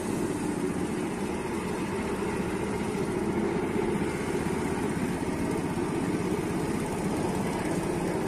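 Small engine of a rail inspection trolley running steadily as it travels along the track, an even low rumble.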